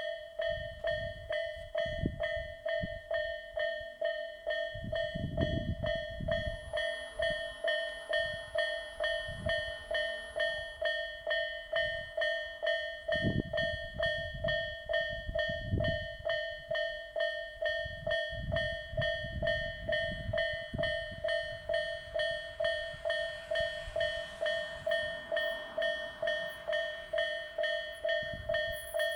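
Japanese railway level-crossing alarm of the Isesaki type, switching on suddenly and then ringing steadily at about two strikes a second. Low rumbles come and go beneath it.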